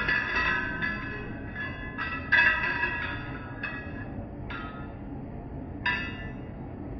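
Metal striking metal: about seven irregular clanks, each ringing briefly with a bright metallic tone. The loudest comes about two and a half seconds in, and the strikes thin out in the second half, over a steady low machinery noise.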